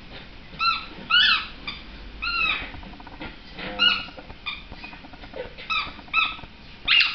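Small dog whining in a string of short, high-pitched cries, each rising and then falling, with pauses between, the whining 'singing' this dog is known for.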